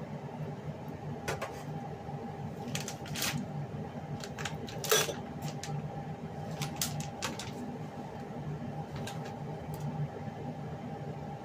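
Kitchen-counter handling sounds: scattered clinks and knocks of utensils and packaging being set down and picked up beside a wok, the sharpest clack about five seconds in, over a steady low hum.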